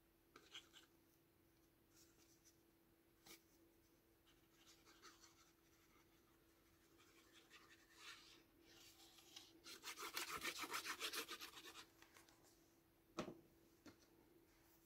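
Paper and card stock handled with soft rubs and scratches, then a rapid fine rasp of about two and a half seconds as adhesive is put on to glue a paper panel onto a card, followed by one light knock on the desk.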